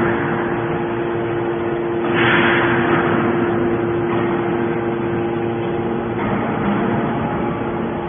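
Hydraulic scrap metal baler running: the steady hum of its hydraulic power unit, with a surge of rushing hiss about two seconds in that eases off over the next second.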